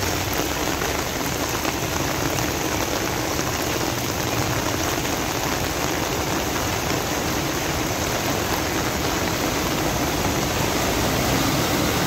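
Heavy rain pouring down onto a flooded street with floodwater running across it: a steady, dense hiss.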